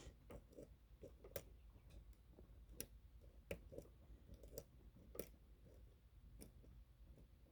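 Faint, irregular metallic clicks and ticks of a lock pick working the pins of a pin-tumbler challenge lock under tension, with a few sharper clicks among softer taps.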